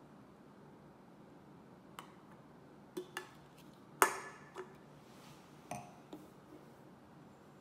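An aluminium beer can and a stemmed glass clacking on a marble tabletop as they are set down and shifted: a few light clicks, then one sharp clack with a short ring about four seconds in, followed by a few softer taps.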